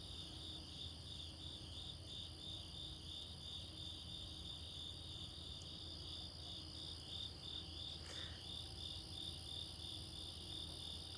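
Crickets chirping in an even, steady rhythm of about three chirps a second, over a continuous higher-pitched insect trill. The sound is faint.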